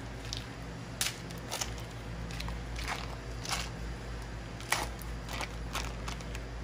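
Foil wrapper of a block of cream cheese crinkling as it is peeled open by gloved hands: a series of short, separate crinkles, over a steady low hum.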